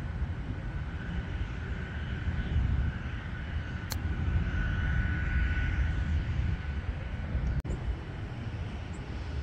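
Titleist 718 AP3 pitching wedge striking a golf ball once on a short chip, a single sharp click about four seconds in. Under it runs a steady low rumble with a faint steady whine.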